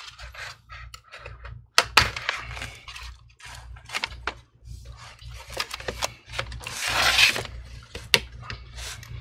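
Plastic pry tool run along the seam of a laptop's bottom cover, scraping, with scattered sharp clicks and snaps as the cover is worked loose; a longer scrape about seven seconds in.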